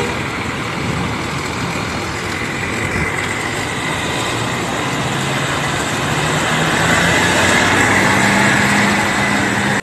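Motor vehicles running across the bus terminal: a coach's diesel engine pulls away and a motorbike passes close by. The steady engine hum grows louder toward the end.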